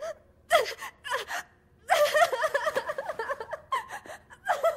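A young woman's voice gasping and breathing hard in short bursts, then a longer stretch of halting, breathy, upset vocal sounds.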